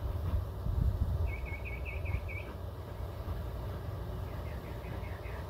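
A small bird singing two short phrases: about six quick repeated chirps about a second in, then a run of falling notes near the end. Under it is a steady low rumble.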